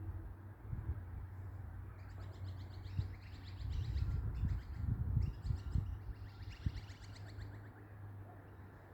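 Small birds chirping in quick, high repeated trills, over a steady low rumble with irregular low thumps.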